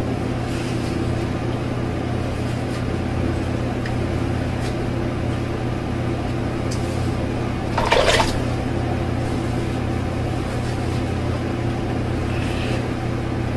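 Blue Shave Club cartridge razor drawn across a lathered scalp in short strokes, faint scraping under a steady mechanical hum in the room; one louder, brief rasp about eight seconds in.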